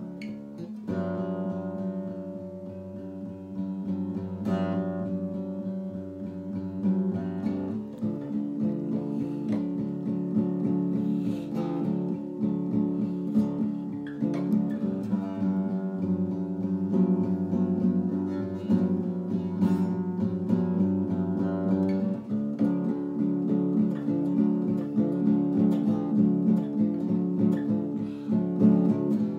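Acoustic guitar being played, a steady run of plucked and strummed chords with quick, even notes.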